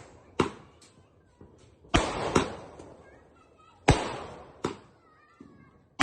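Aerial sky-shot fireworks bursting: a series of sharp bangs at uneven intervals, about five loud and a few fainter, each trailing off after the report.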